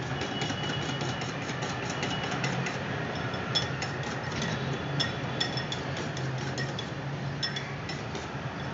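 A utensil beating besan batter in a bowl, clicking and clinking against the bowl several times a second, over a steady low hum. The batter is being mixed fast right after fruit salt has been added, so that it does not lose its fizz.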